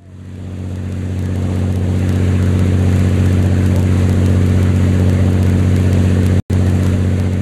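Lifeboat's engine running hard at a steady pitch, building up over the first second or so. It is run at full power so that the water in the swamped boat will, supposedly, drain out. The sound breaks off for an instant about six and a half seconds in.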